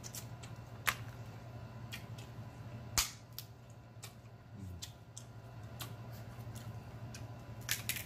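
Sharp snaps and clicks of crab shell being cracked and picked apart by hand, loudest about one and three seconds in, with a quick cluster near the end. A low steady hum runs underneath.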